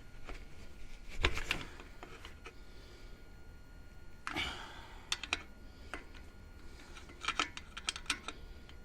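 Light metallic taps and clicks in scattered groups: a tool striking the locking tab washer to bend it over the inner wheel-bearing nut on a Land Cruiser front hub.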